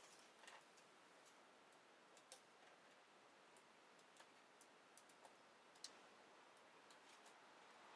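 Faint, irregular small clicks and ticks from a precision Phillips screwdriver working small screws out of a laptop LCD panel's side mounts, over near silence.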